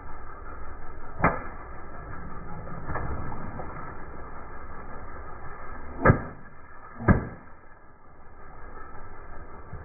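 Long modelling balloons bursting with sharp pops under a slowly rolling car tyre: one pop about a second in, then two louder pops a second apart past the middle, over a low steady rumble.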